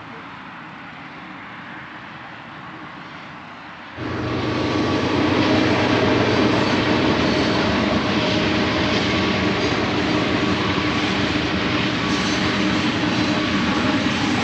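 Train rolling past on the tracks: a loud, steady rumble of rail cars that comes in abruptly about four seconds in, over a quieter steady background hum.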